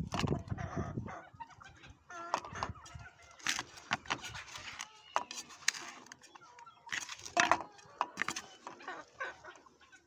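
Chickens clucking in short, irregular calls.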